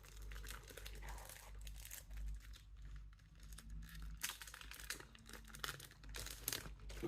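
Faint crinkling and rustling of CD packaging being handled and unwrapped, with scattered light clicks.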